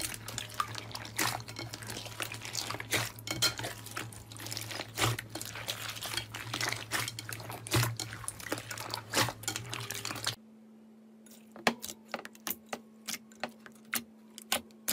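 Hands squeezing and kneading a bowl of thick green slime mixed with foam beads: dense, irregular wet crackling and squelching pops. About ten seconds in it switches to a quieter steady hum with separate sharp pops, a few a second, as a hand presses clear blue slime.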